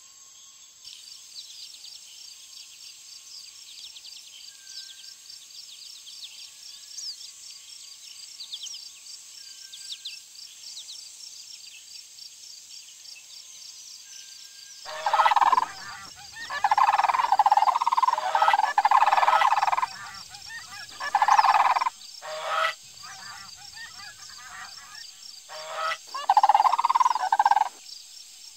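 Insects trill steadily in a high register, with a few faint bird chirps. About halfway through, sandhill cranes break into loud calling in long, repeated bursts that carry on to the end.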